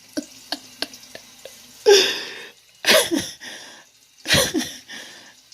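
Soft rhythmic clicking for about two seconds, then a loud sneeze-like vocal blast, followed by two shorter vocal outbursts that fall in pitch.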